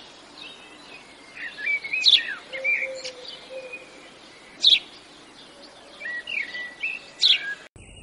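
Birds chirping and twittering outdoors, with a loud, sharp note about every two and a half seconds among softer calls. The sound cuts off just before the end.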